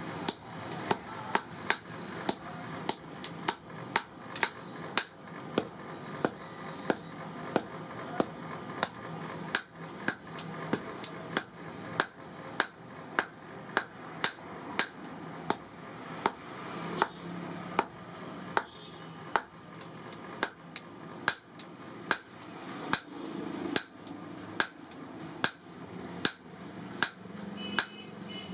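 Hand hammer striking leaf-spring steel on an anvil in a steady rhythm, about two ringing blows a second, with a steady noise underneath.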